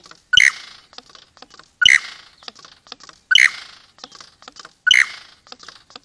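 Male superb lyrebird singing during its tail-fanned display: four loud sharp notes about a second and a half apart, each followed by a run of quieter dry clicks.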